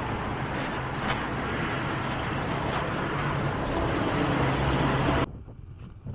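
City street traffic noise with a vehicle engine running close by, its low hum growing over the last couple of seconds. The sound drops away suddenly about five seconds in.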